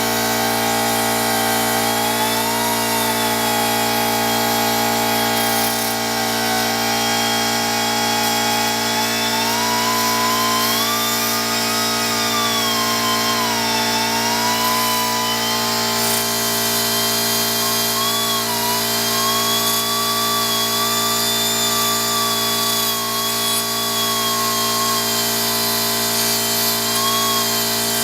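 Pneumatic air grinder with a cut-off wheel cutting flat steel stock: a steady high whine that sags and recovers in pitch as the wheel bites into the metal and eases off.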